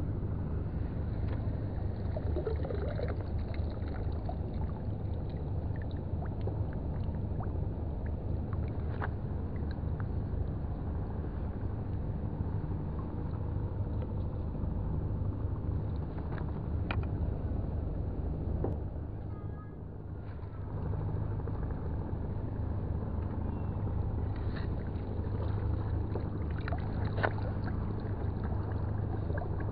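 A steady low engine drone with a constant hum, dipping briefly about two-thirds of the way through, with scattered light clicks and knocks over it.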